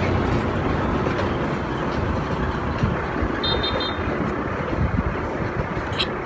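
Steady street traffic noise, a continuous rumble of passing vehicles. About three and a half seconds in comes a quick run of short, high electronic beeps, and a sharp click near the end.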